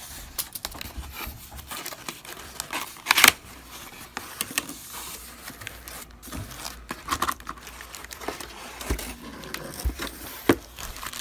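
Cardboard box being pulled open by hand: cardboard rubbing and scraping with scattered clicks, a loud tearing noise about three seconds in, and plastic packaging crinkling.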